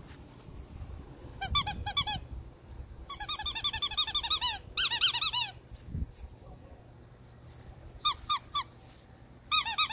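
Squeaky dog toy squeezed in bursts of short, high squeaks: a few, then a fast run of many, then three more and a final few.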